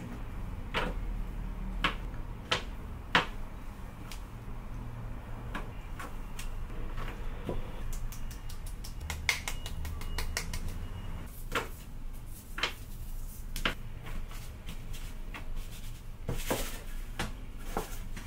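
Light clicks and taps as vegetables and bamboo skewers are set down on a stainless steel tray, with a run of quick ticks around the middle as starch is tapped out of a small sifter cup over them. A brief scrape comes near the end.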